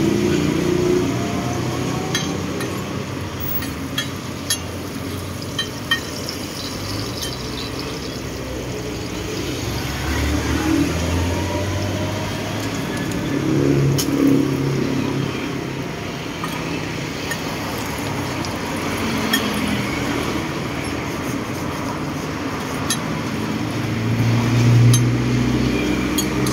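Road traffic passing close by, swelling and fading several times, with a few sharp clicks and clinks, most of them in the first few seconds.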